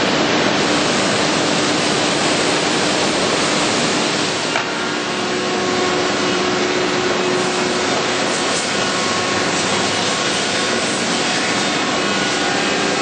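Stemas edge sanding line running with panels passing through: a steady, loud wash of sanding and dust-extraction noise with a faint steady hum underneath, dipping briefly about four and a half seconds in.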